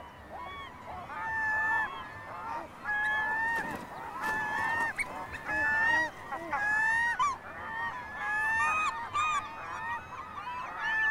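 Glaucous-winged gulls in a nesting colony calling over one another: many overlapping drawn-out calls, with the nearest, loudest ones coming in groups every second or two. This is the territorial calling of males defending their nest sites.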